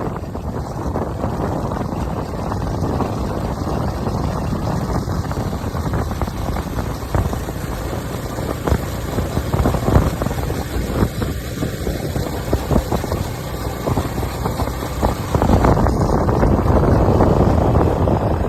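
A moving vehicle's engine and road rumble, with wind buffeting the microphone. It gets louder a few seconds before the end.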